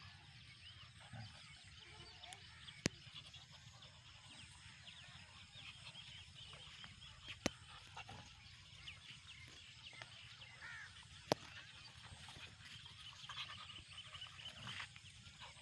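Faint outdoor ambience of many small chirping calls, broken by three sharp clicks spaced about four seconds apart.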